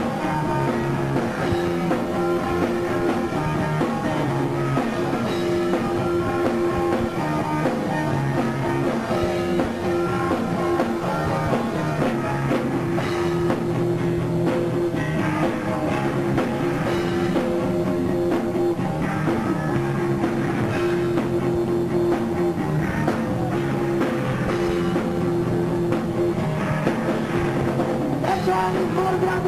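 A punk-noise rock band playing live, with drum kit and guitar over a steadily held droning note.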